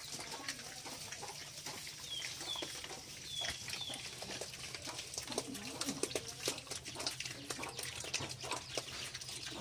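Piglets eating from a plastic feed bowl: a steady run of wet chomping, smacking and knocking sounds, busier in the second half. A few short high bird chirps come about two to four seconds in.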